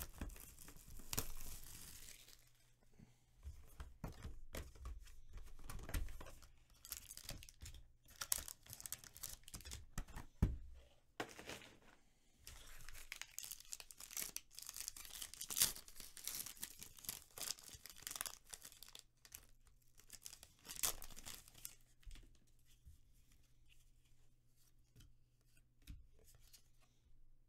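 Plastic wrapping on a sports card box and a sealed card pack being torn open and crinkled by hand, in irregular crackling bursts with a few sharp snaps.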